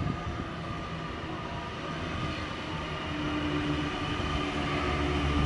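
Hyundai Rotem D set electric double-deck train approaching along the track, its running noise slowly growing louder as it nears. A low steady hum joins about three seconds in.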